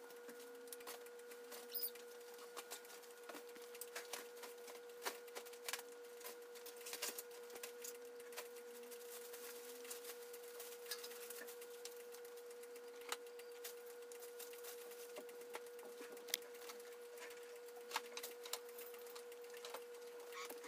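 Kitten's claws clicking and scrabbling on the metal bars of a wire pet pen as it climbs along the top edge: scattered, irregular light clicks and rattles over a steady faint hum.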